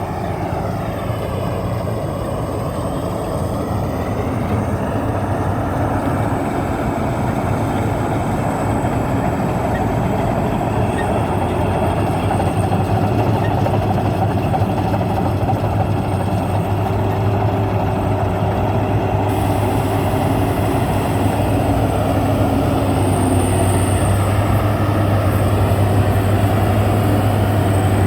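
Maxxi Bimo rice combine harvester running steadily, its engine and threshing machinery giving a continuous low drone that grows slightly louder over the second half.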